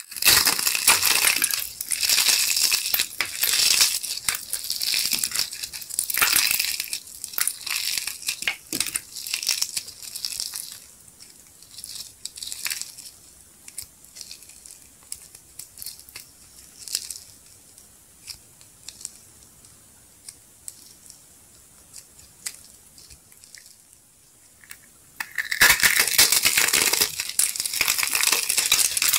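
Dry glitter-coated soap ball being crushed and crumbled between the fingers: dense crackling crunches, thinning to sparse, quieter crackles about a third of the way in, then loud dense crunching again near the end.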